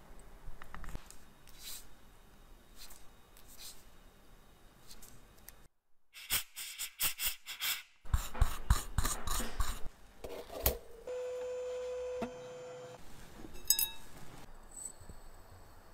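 Light clicks, taps and scraping of a watchmaker's metal tools on a wristwatch movement, broken by abrupt cuts, with a steady hum for about a second past the middle.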